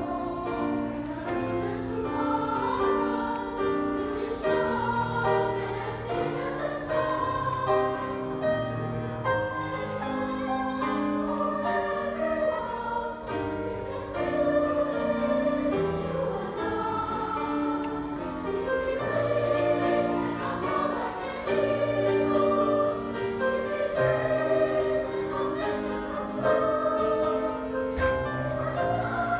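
Music with singing over an instrumental accompaniment, long held notes that waver in pitch.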